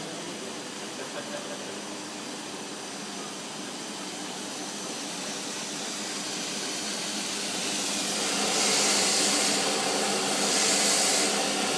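Central drum slitting machine running, a steady mechanical hum with a hiss over it. From about eight seconds in the sound grows louder, and a high hiss swells and fades twice.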